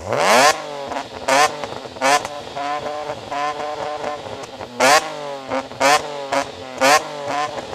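BMW E46 M3's S54 straight-six heard close at the exhaust tips, revved in a run of about eight short, sharp throttle blips, each climbing and dropping straight back to a steady idle between them.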